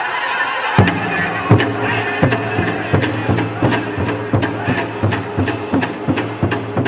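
Powwow drum group: singing, with the big drum coming in about a second in and then beaten in a steady, quick beat of hard, booming strokes.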